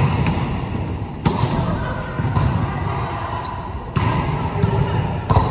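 A ball thudding on a hardwood gym floor and being hit, four or five sharp thuds roughly a second apart, echoing in a large hall.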